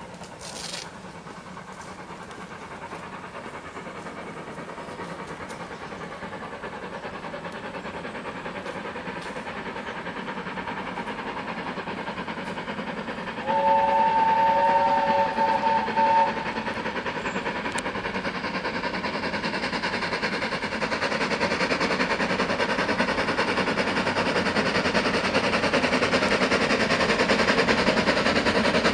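Heritage railway train approaching along the line, its running noise growing steadily louder. About halfway through, a chord-like train whistle sounds for about three seconds.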